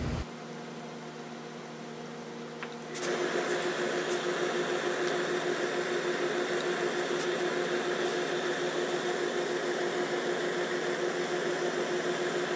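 A steady mechanical hum with a hiss and one steady tone, like a small motor or fan running, growing louder about three seconds in, with a few faint ticks over it.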